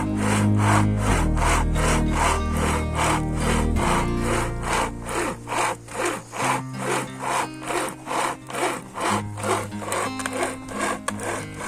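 A serrated blade sawing back and forth in even strokes, about three a second, over background music.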